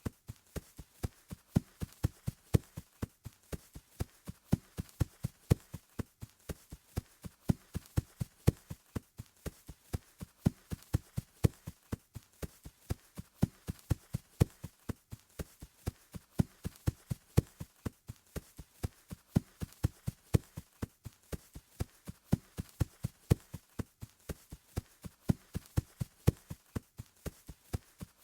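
Footsteps running on grass: quick, steady thuds, about three to four a second.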